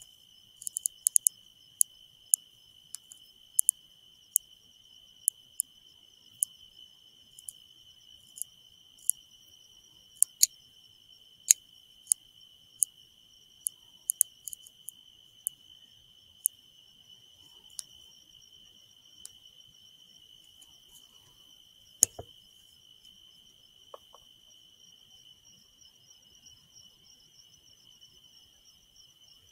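Sharp clicks from the buttons of a Pulsar Thermion 2 XP50 thermal riflescope as its menus are scrolled. They come about one or two a second at first, then thin out to a few scattered clicks, with a single louder knock about two-thirds of the way through. Under them runs a steady high insect trill.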